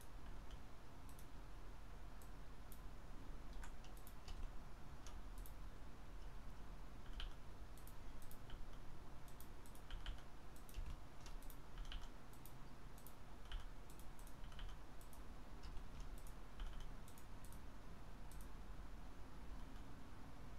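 Computer keyboard keystrokes and mouse button clicks, short and irregularly spaced, a few at a time, over a faint low hum.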